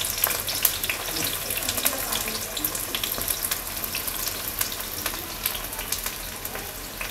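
Sliced onions sizzling and crackling in hot sesame oil just after being tipped in; the sizzle eases a little toward the end.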